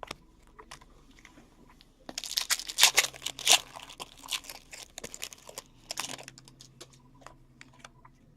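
Crinkling and tearing of a hockey trading-card pack wrapper being opened, with light clicks and rustles of cards being handled. The crinkling is densest about two to four seconds in.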